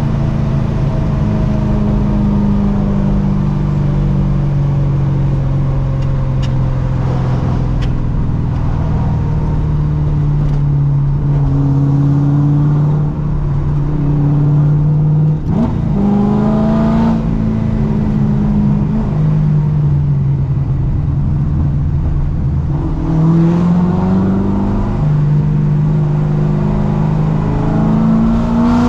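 Corvette C6's supercharged LS3 V8 running under light load on the move: a steady low engine drone that sags slowly. About halfway through it dips sharply and picks up again, and it rises in revs again near the end.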